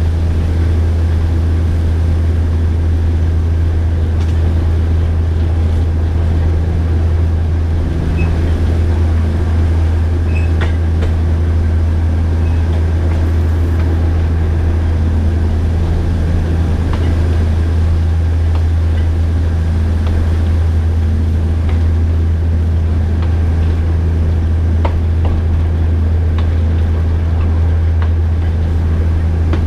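Alishan Forest Railway DL-41 diesel locomotive running steadily under way, a deep, even engine drone with a few faint clicks from the train.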